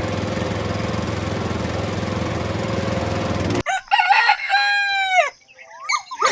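An engine runs steadily and cuts off abruptly about three and a half seconds in. A rooster then crows once, a long call that falls away at the end, and another call begins just before the end.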